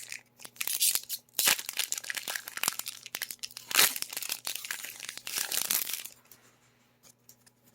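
Foil booster pack wrapper being torn open and crinkled, with dense crackling that stops about six seconds in.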